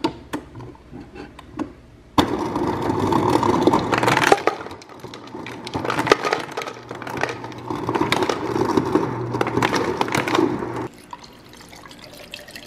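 Refrigerator door dispenser running into a plastic shaker bottle, with a steady low hum under the noise of the fill. It starts abruptly about two seconds in after a few light clicks and cuts off near the end.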